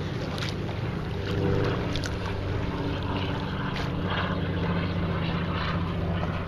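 Steady hum of a motorboat engine running at a constant pace, with a few short splashes from kayak paddle strokes in the water.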